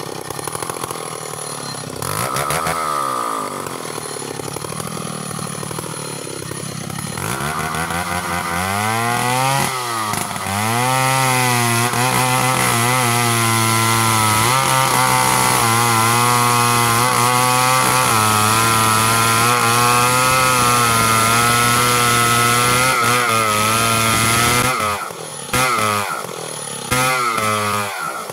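A 070 two-stroke chainsaw with a 25-inch bar idles with a short rev about two seconds in, then revs up and runs at full throttle for about fifteen seconds while cutting into the trunk of a standing tree, its pitch wavering slightly under load. Near the end it drops back and is revved briefly twice.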